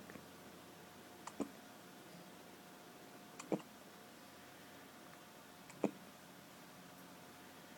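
Three short, sharp hiccups about two seconds apart.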